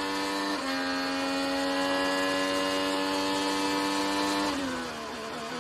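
Onboard sound of an IndyCar's Honda 2.2-litre twin-turbo V6 at full throttle: an upshift about half a second in drops the pitch, which then climbs steadily as the car accelerates down the straight. Near the end the driver lifts and the note falls away as he brakes and downshifts for the corner.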